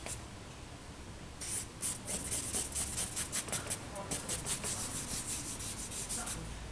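Stick of charcoal scratching across drawing paper in quick, repeated hatching strokes, several a second. The strokes start about a second and a half in, after a quieter moment.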